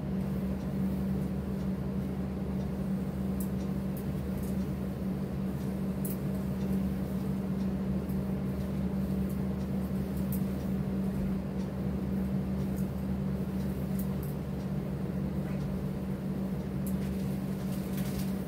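Steady low mechanical hum running without change, with faint scattered clicks and rustles of fabric being handled.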